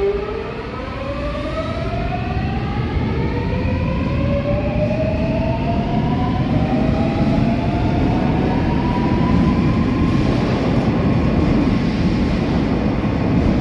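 Seoul Subway Line 4 train with Alstom GTO-VVVF traction pulling away from the platform. The inverter whine climbs in several parallel tones for about ten seconds as the train accelerates, over the rising rumble of wheels on rail.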